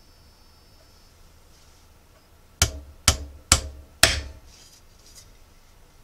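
Hammer knocking four times, about half a second apart, on a cast-metal letter fixed to a wooden board.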